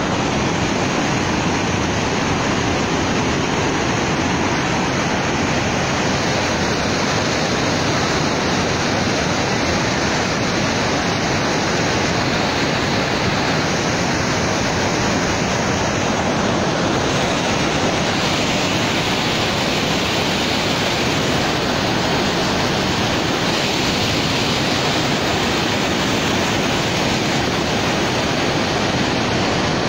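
Floodwater pouring over a dam spillway and churning in the river below: a steady, loud rush of water.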